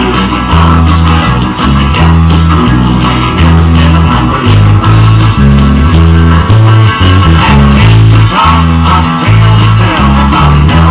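Epiphone electric bass guitar playing a steady line of low notes, changing about once or twice a second, under strummed guitar in a country-rock song.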